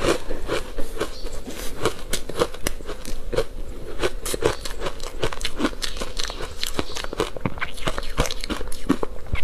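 Close-up chewing of a mouthful of soft, powdery ice coated in matcha powder, with many small irregular crunches and crackles as the ice breaks up.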